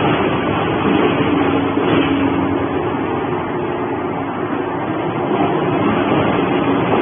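Industrial twin-shaft shredder running, its cutters tearing up cardboard boxes fed into the hopper: a loud, steady mechanical noise with a low hum.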